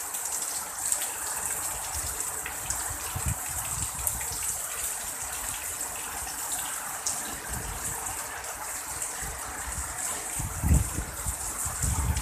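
Heavy rain pouring down in a steady, dense hiss, with a couple of low rumbles near the end.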